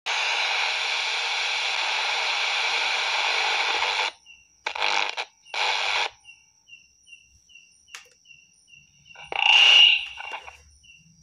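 FM static hissing from a handheld radio receiver, cutting off suddenly about four seconds in. Then two short bursts of static, a faint short chirp repeating a couple of times a second, and a louder burst of noise near the end.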